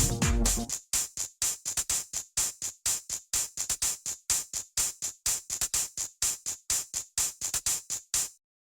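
Student-composed electronic ringtone. A full beat with bass and drums drops out in the first second, leaving only a quick, uneven pattern of crisp, hi-hat-like hits, about five a second, which stops just before the end.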